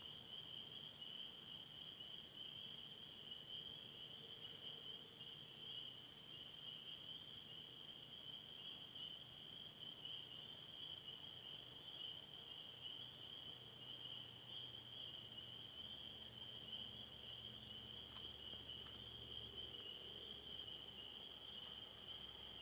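Faint, steady, high-pitched evening chorus of distant calling creatures, a continuous shimmering trill.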